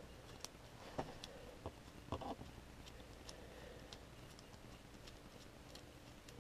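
Faint scattered clicks and light taps of small metal parts and tools being handled, as the propeller and prop adapter are worked loose from a small model airplane engine. About half a dozen clicks fall in the first three seconds or so, and then it goes nearly quiet.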